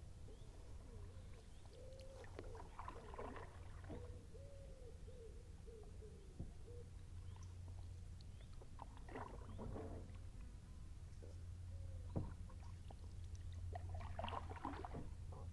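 Kayak paddle dipping and splashing in calm river water, three strokes about five seconds apart. A bird's low, repeated call is heard in the first half.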